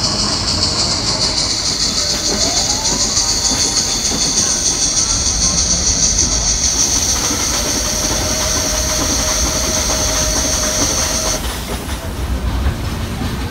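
Nilgiri Mountain Railway steam train running along the track, with a loud steady high hiss that cuts off about eleven seconds in.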